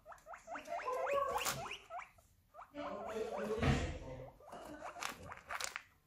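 Guinea pig squeaking in quick runs of short rising squeaks, about five a second, near the start and again near the end. A louder, noisier stretch comes in the middle.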